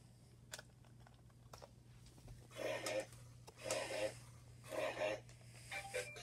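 Robosapien toy robot making three short raspy, grunt-like sounds about a second apart through its small speaker. Near the end a tinny electronic dance tune starts playing.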